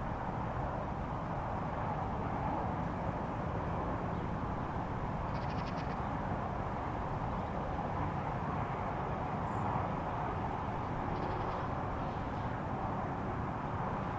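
A steady low rumbling drone with a hum band in the middle of the range: the unexplained 'strange sound from the sky'. Two short raspy calls rise above it, about five and about eleven seconds in.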